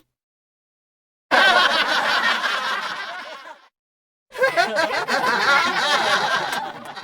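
Laughter in two bursts of about two to three seconds each, each one fading out.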